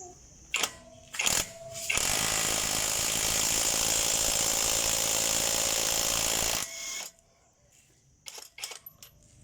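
Cordless impact wrench hammering steadily for about four and a half seconds, on a car wheel nut that was tightened with a tyre shop's air gun, then stopping abruptly. A few short knocks come before it and near the end.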